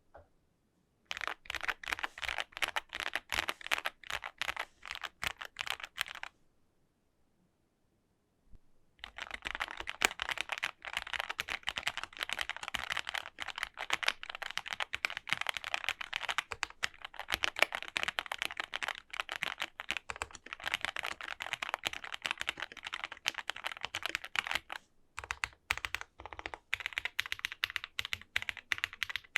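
Meletrix ZOOM65 mechanical keyboard in its stock configuration being typed on: quick runs of keystroke clacks, a pause of about two and a half seconds near the start, then fast continuous typing to the end.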